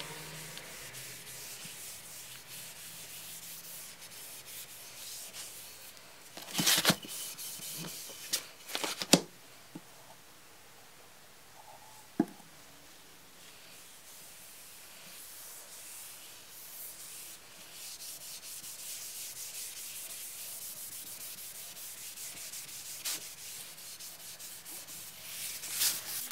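A cloth rubbing finish into the surface of a hardwood cutting board, a steady soft scrubbing hiss that eases off for a few seconds mid-way. A few sharp knocks stand out between about seven and twelve seconds in.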